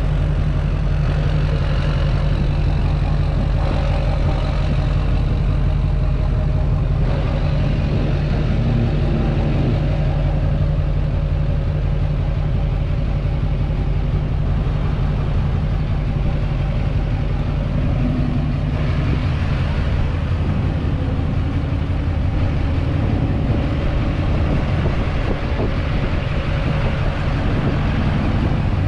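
A 2006 single-cab LBZ Duramax 6.6-litre V8 turbo-diesel pickup, straight-piped through a 5-inch exhaust, idling steadily with a deep, even exhaust note.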